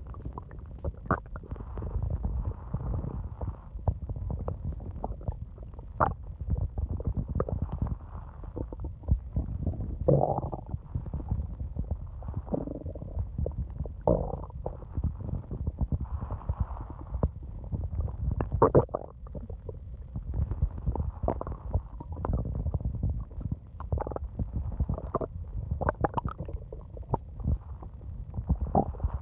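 Human stomach growling: a continuous low rumble with many short, higher-pitched gurgles and squeaks, some gliding in pitch, as gas and fluid move through the gut.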